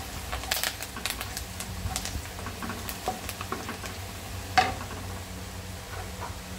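Wooden spatula stirring and scraping through garlic, bird's eye chillies and curry leaves frying in butter in a nonstick wok, with a light sizzle and many small scrapes and taps against the pan. One sharper knock about four and a half seconds in.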